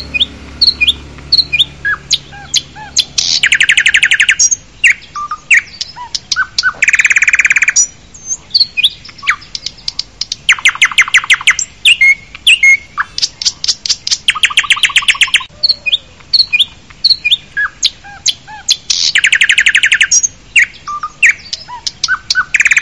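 Birds calling: short, sharp chirps throughout, broken every few seconds by loud, rapid trills lasting a second or two.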